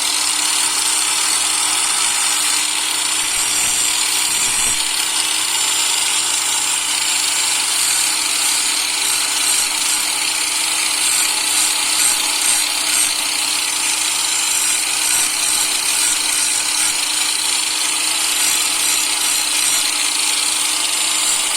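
Electric power tool running steadily as it grinds a chamfer onto the edges of hard brake pads, a garage fix for squealing brakes.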